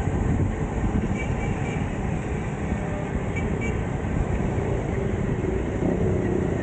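Steady wind rush and rumble on the microphone of a rider cycling along a road, with a few faint short high tones about a second in and again about three and a half seconds in.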